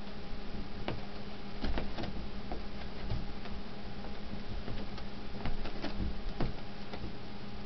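A cat's paws thumping and scratching at a wall rug and landing on a bed as it pounces at a laser spot, giving irregular clicks and a few heavier thumps over a steady low hum.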